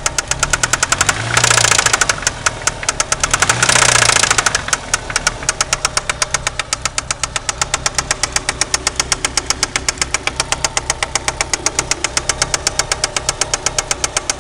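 Turbocharged 4G63 four-cylinder engine running with a fast, regular rod knock, from a spun connecting-rod bearing that has left play between the rod and the crankshaft. It gets louder in two brief surges, about one and a half and four seconds in.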